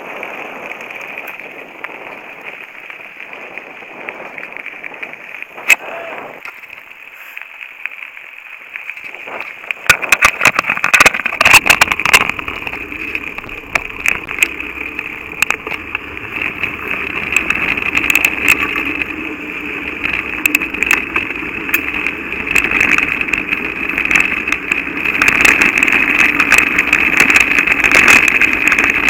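Mountain bike rolling fast over a gravel road: tyre and wind noise on the camera microphone, with the bike and camera mount rattling over bumps. About ten seconds in it grows louder, with a low rumble and frequent sharp knocks.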